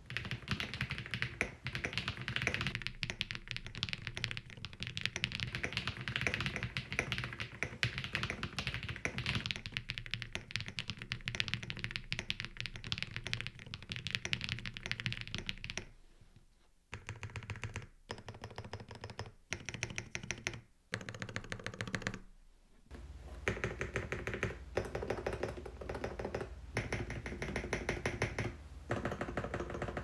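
Custom Ikki68 Aurora R2 mechanical keyboard being typed on fast, its KTT Rose linear switches on a polycarbonate plate under Osume Tsukimi keycaps giving a clacky sound. The typing breaks into short bursts with pauses a little past the middle, then runs on continuously over a low steady hum near the end.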